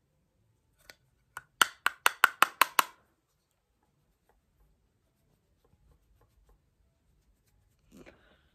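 A quick run of about eight sharp taps, roughly six a second, as a makeup brush is knocked against a plastic bronzer compact, with a couple of single clicks just before.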